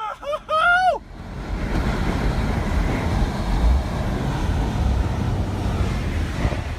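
A short raised voice in the first second, then a steady rushing noise with a heavy low rumble.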